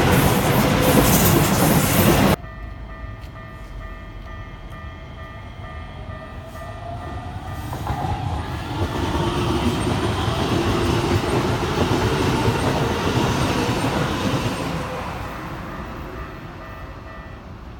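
Keikyu Line trains passing over a level crossing while its warning bell rings steadily. A close train cuts off abruptly about two seconds in; a rising whine follows, then another train passes, loudest from about eight to fifteen seconds in, and the bell stops near the end.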